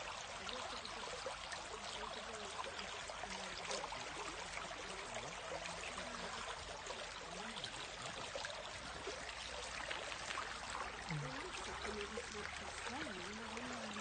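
Small, shallow stream running over a gravel bed, a steady rushing trickle of water.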